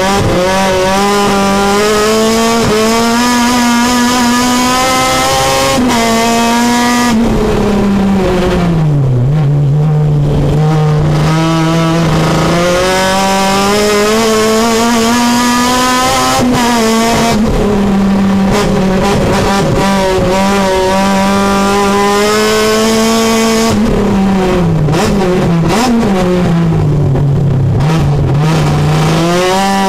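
Honda K24 four-cylinder engine with a Kraftwerks supercharger, heard from inside the race Civic's cabin on a flying lap. It pulls hard with the pitch climbing, then drops away off the throttle for corners several times before winding up again.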